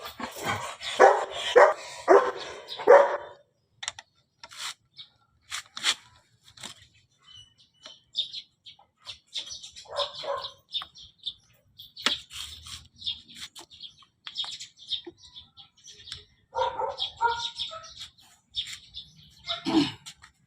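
A dog barking, about five barks in quick succession at the start, then a few more barks later on. Birds chirp in between, with scattered sharp clicks.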